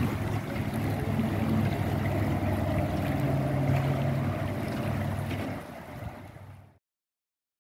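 Water gushing and churning as it is pumped into a basin through hoses, over a low steady machine hum. It fades out about six seconds in.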